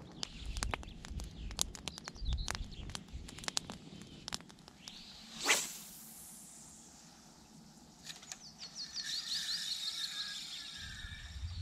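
Spinning rod cast with a single sharp swish of rod and line about halfway through, after scattered light clicks. Near the end comes a fast run of high ticks as the spinning reel is wound in.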